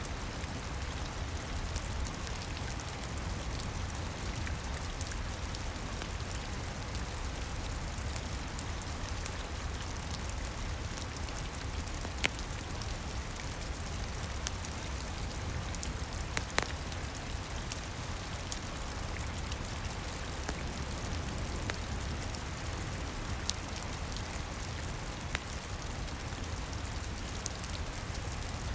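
Steady rain falling, with a few isolated sharp pops spread several seconds apart from a crackling wood fire.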